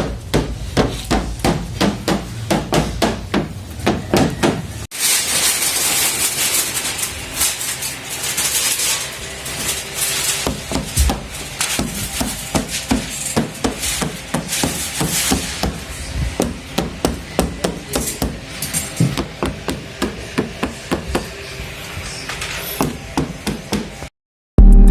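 Repeated knocking on a Subaru Impreza's door panel, about three or four knocks a second, to test how it sounds with sound deadening. An abrupt cut about five seconds in switches to a second take of knocking over more background hiss, which stops just before the end.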